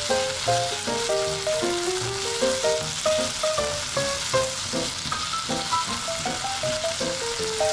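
Sliced chicken gizzards sizzling in sesame oil in a frying pan as they are stir-fried with chopsticks, a steady frying hiss. A light melody of background music plays along with it.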